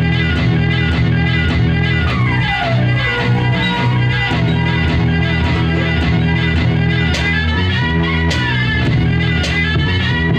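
Live electronic music played on hardware synthesizers: a steady, heavy bass under a pitched lead line that glides down in pitch about two seconds in and slides back up near the end.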